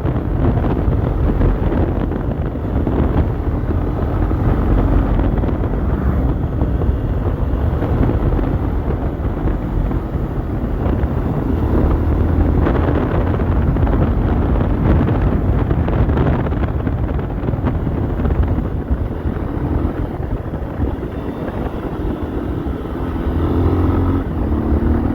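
Honda XRE 300's single-cylinder engine with its stock exhaust, running steadily while riding, with wind buffeting the microphone. Near the end the engine pitch climbs as it revs up.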